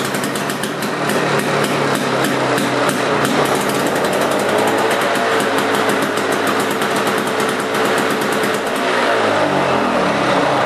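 Two-stroke engine of a Lawn-Boy push lawnmower running fast and steady with a rapid rattly pulse, just after a cold pull start, then slowing down near the end as it is shut off.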